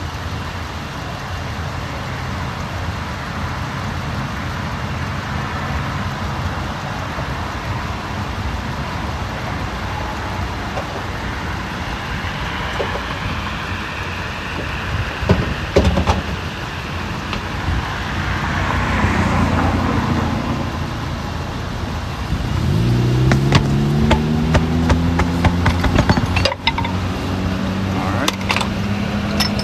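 Steady roar of highway traffic passing close by. About three-quarters of the way through, a vehicle's engine note rises in pitch, and scattered knocks and clicks come from the work near the end.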